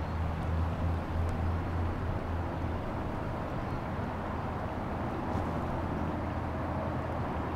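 Steady low rumble under outdoor background noise.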